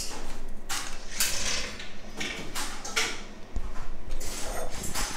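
Irregular scraping strokes of a tool working on the candy table, several in a few seconds, each a short hissing scrape.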